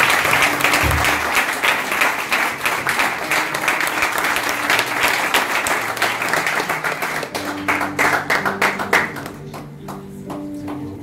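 Congregation applauding, the clapping dying away about nine seconds in, with soft music playing underneath.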